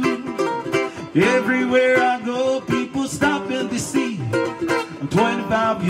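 Ukulele strummed steadily while a man sings along, his voice sliding in pitch between held notes.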